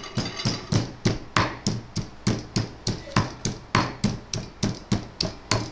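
Pestle pounding in a mortar in a steady rhythm of sharp knocks, about three a second, crushing ginger for a soup.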